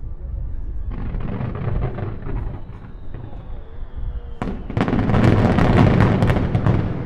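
Fireworks barrage: many shells bursting in quick succession with crackling from about a second in, then a sharp bang about four and a half seconds in opening a louder, denser volley of bangs and crackle.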